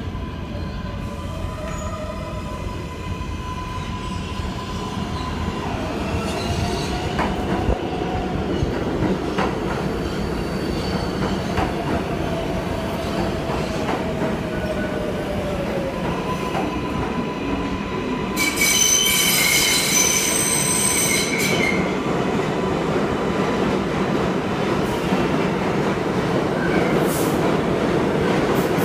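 An R142A subway train pulling into the station: a continuous rumble of wheels on rail under a motor whine that slides down in pitch as the train slows. About 18 seconds in comes a loud, high-pitched squeal lasting about three seconds, and another squeal starts right at the end.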